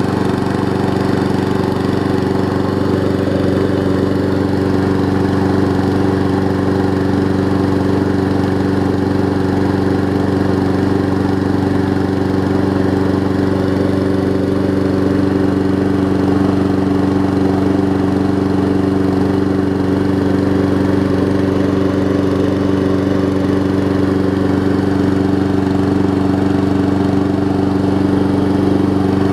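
Briggs & Stratton Quantum single-cylinder engine on a Weed Eater VIP push mower, running at a steady speed. It runs smoothly after a flywheel key replacement and a carburetor swap, with the start-up smoke burned off.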